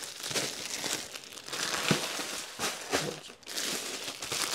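Plastic suit packets crinkling as they are handled, an irregular crackling rustle with a louder crackle about two seconds in.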